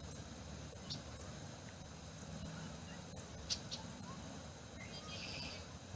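Faint outdoor ambience with a few brief high chirps, a small cluster of them about five seconds in.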